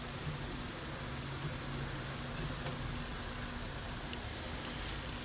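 Steady background hiss with a faint low hum and no distinct knocks or clicks: shop room tone.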